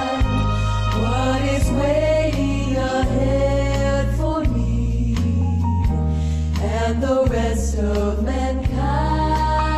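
Women's vocal group singing a gospel song in close harmony, over instrumental accompaniment with a steady bass line.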